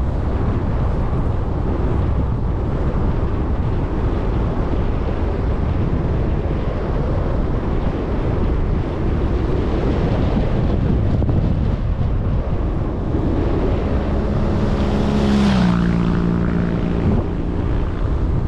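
Steady wind rush on the microphone of a camera riding on a moving bicycle. Near the end a motor vehicle passes, its engine note dropping in pitch as it goes by.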